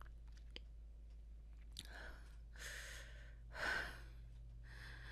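A woman breathing heavily: four long breaths or sighs in a row, the third the loudest, over a faint steady low hum.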